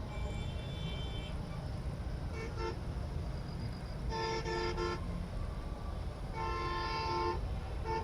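Vehicle horns honking repeatedly over a steady low rumble: a short toot about two and a half seconds in, a longer run of blasts around four seconds in, another held blast around six and a half seconds in, and one more starting at the end.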